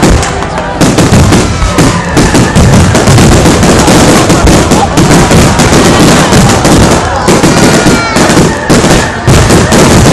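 Fireworks display going off: a rapid, continuous run of bangs and crackling from bursting shells and launching comets, loud throughout.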